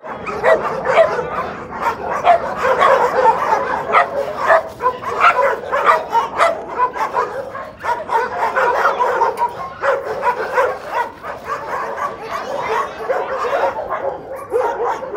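Puppies and young dogs yipping and barking, many short high calls overlapping without a break.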